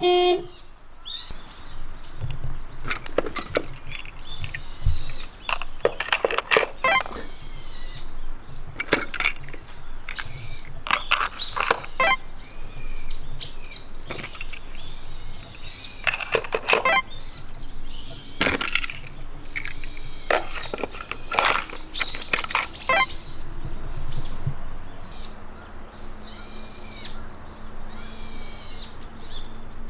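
Die-cast toy cars clicking and knocking against a clear plastic carry case and wooden tabletop as they are pushed into its compartments, with birds calling repeatedly in between.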